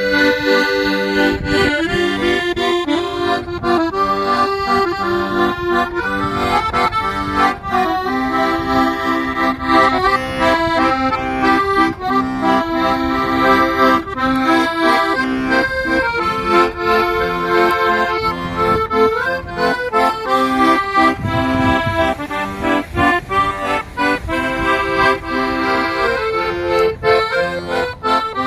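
Accordion playing a traditional tune: a melody in the treble with bass notes and chords underneath.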